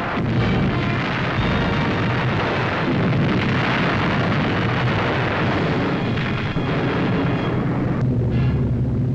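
Soundtrack music mixed with a continuous, dense din of explosion sound effects, steady in level with no clearly separate blasts.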